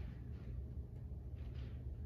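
A woman's heavy breathing through a leg-raise exercise: two breathy exhales about a second and a half apart, from the effort of the exercise, over a low steady hum.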